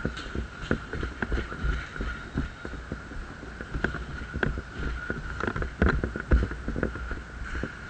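A scatter of irregular knocks and clicks, a few a second and loudest about six seconds in, over a steady high-pitched hum.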